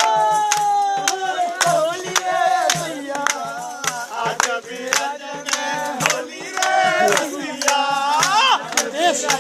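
A group of voices singing and shouting together over a steady beat of sharp strikes, about two to three a second.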